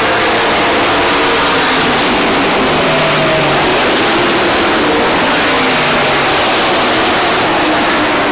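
Several dirt-track race trucks running at speed around the oval. The engines make a loud, continuous noise whose pitch rises and falls as the trucks accelerate and pass.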